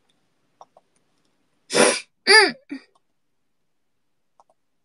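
A person sneezing once, about two seconds in: a sharp noisy burst and then a short voiced sound falling in pitch.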